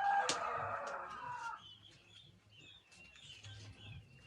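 A rooster crowing, one long call that ends about a second and a half in, followed by faint, short high chirps.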